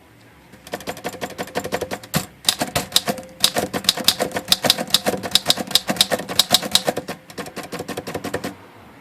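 Royal Model P portable typewriter being typed on briskly, a rapid run of sharp key strikes that starts under a second in, breaks briefly a little after two seconds, then goes on and stops about half a second before the end.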